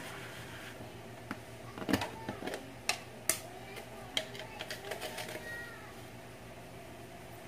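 Clicks and knocks of a clear plastic salt jar being handled, with a spoon clattering inside it. A short, faint squeak comes about two-thirds of the way through.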